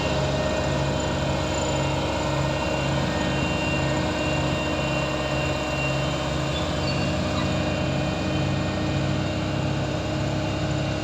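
Heavy construction machine's diesel engine running steadily, with a low hum that pulses evenly.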